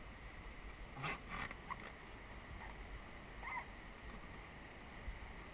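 Faint steady rush of river water with rapids downstream, heard from a raft drifting on calm water. Short faint sounds stand out about a second in and again at about three and a half seconds.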